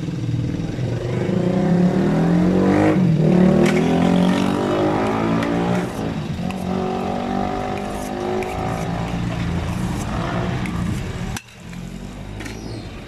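A motor vehicle's engine running, its pitch rising over the first few seconds and then holding fairly steady before cutting away sharply near the end.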